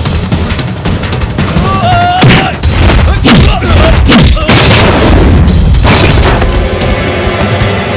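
Film fight sound effects: a rapid series of heavy punch and kick impacts with yells and grunts, over loud action music.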